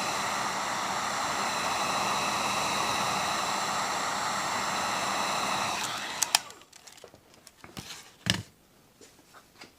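Handheld hot-air blower running steadily while heating a sheet of bitumen sound deadener, switched off about six seconds in. A few clicks and light handling knocks follow.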